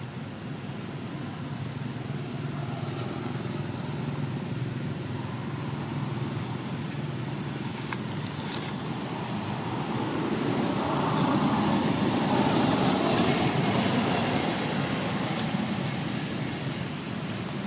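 Steady rumble of a motor vehicle engine, growing louder about ten seconds in and easing off near the end, as if passing by.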